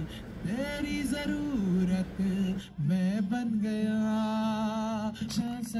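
A man singing live to an acoustic guitar, amplified through a PA speaker, holding one long wavering note about halfway through.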